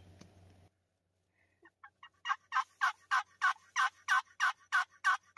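Wild turkey yelping: a long run of short, evenly spaced yelps, about three a second, starting faint and growing loud about two seconds in.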